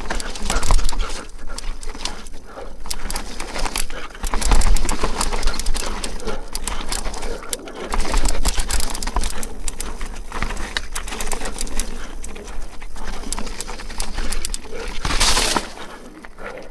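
Mountain bike riding a rough downhill dirt trail, as heard from an on-bike or helmet camera: wind rumbling on the microphone over tyre noise and many small rattles and knocks from the bike. A short loud hiss comes about fifteen seconds in.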